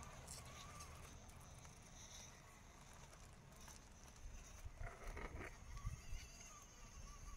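Near silence, with faint clicks and crunches about five to six seconds in as small 1/18-scale RC crawler trucks' tyres move over gravel and rock.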